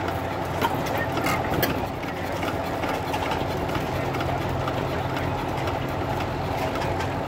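Small hit-and-miss farm engine running, a steady low engine hum with scattered sharp clicks.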